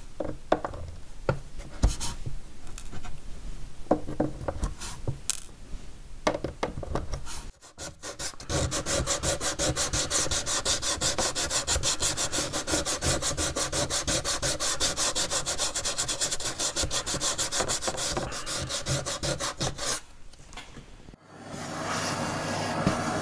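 Pliers pulling pins out of wooden model-ship planking, giving scattered clicks and snaps. Then sandpaper rubbed over the balsa-like wooden transom planking in quick, even back-and-forth strokes. Near the end a small hand-held motorised tool starts, with a steady hiss and low hum.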